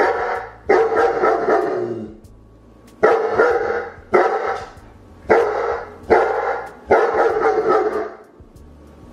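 A dog barking, seven loud barks in uneven groups, each trailing off over about half a second.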